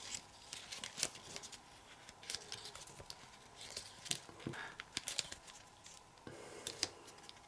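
Folded printer paper rustling and crinkling faintly as fingers work a pleated flap out, with scattered small crackles of paper layers sliding and creasing.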